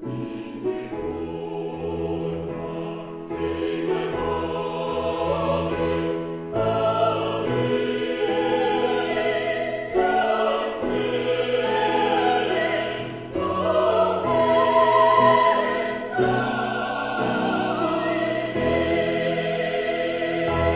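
Music: choral singing, with long held notes sung with vibrato.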